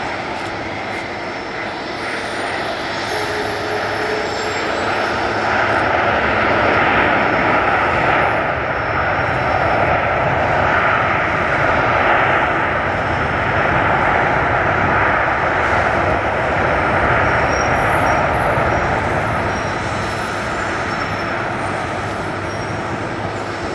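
Boeing 747-400's four jet engines running loud in reverse thrust during the landing roll on a wet runway, a steady rush of noise with a thin whine under it. It swells about five seconds in and eases off over the last few seconds as the jet slows.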